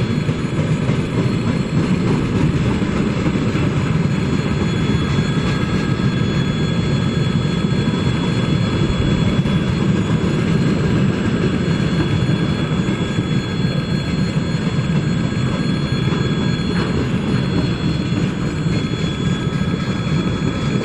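Freight train of tank cars rolling past a level crossing: a steady, loud rumble and clatter of wagon wheels on the rails, with several thin, high ringing tones held steady over it.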